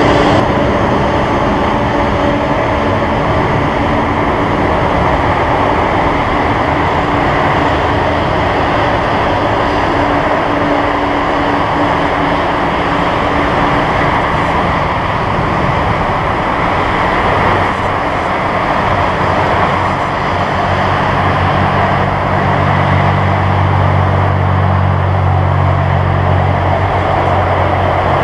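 Boeing 747-400 freighter's four jet engines running as the airliner rolls slowly after landing, a loud, steady noise. A steady whine fades out about halfway, and a deeper low hum comes in about two-thirds of the way through.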